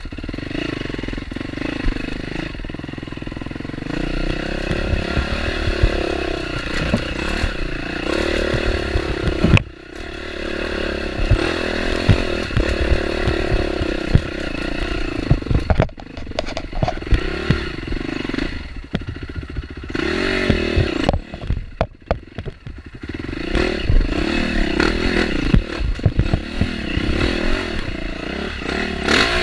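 Off-road motorcycle engine running under load, revs rising and falling as the throttle is worked, with the throttle closed briefly about three times. The bike clatters over rough ground.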